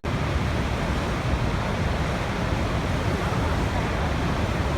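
Waterfall: a steady, even rush of falling water, heaviest in the low end, broken only by a split-second dropout at the very start.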